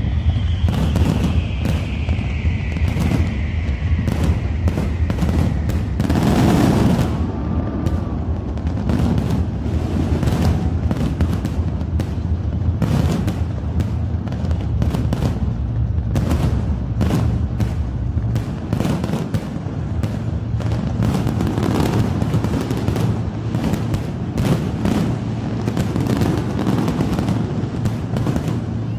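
Fireworks display: a rapid, irregular string of aerial shell bursts, bangs and crackles, with one bigger burst about six seconds in.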